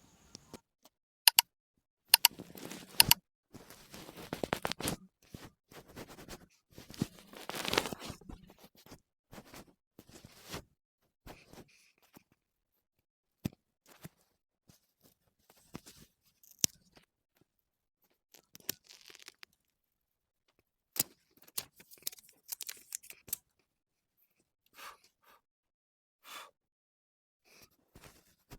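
Irregular handling noises: scraping and tearing sounds with several sharp clicks, in bursts with quiet gaps between.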